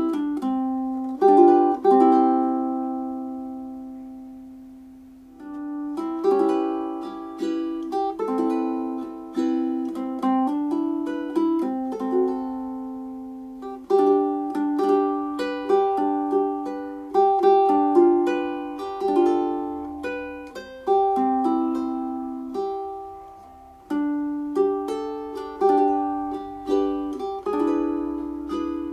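Naturel mahogany tenor ukulele played solo, a fingerpicked melody with chords. About a second in, a chord is left to ring and fade for a few seconds before the picking starts again.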